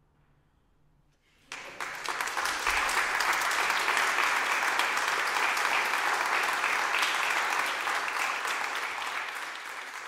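Audience applause after the piece ends. After a second and a half of near silence, the clapping breaks out suddenly, quickly fills to a steady level, and thins out gradually near the end.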